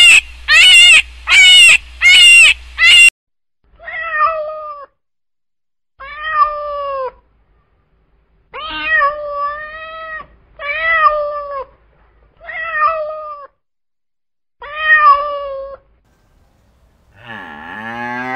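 A cat meowing six times, each meow about a second long, about two seconds apart. Before the meows, a quick run of loud, very high-pitched squeals cuts off about three seconds in, and near the end a new rising call begins.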